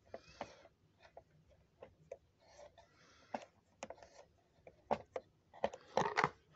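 Small screwdriver turning out a screw: faint, irregular clicks and light scrapes, with a quicker, louder run of clicks near the end.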